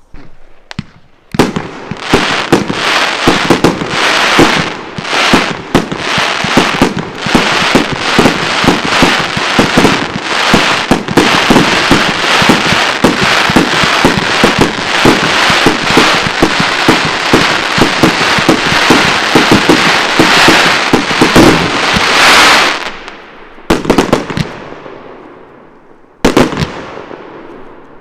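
Large fireworks display firing a rapid, continuous barrage of shots and bursts for about twenty seconds. It stops suddenly, and then two more single bangs each ring out and fade away.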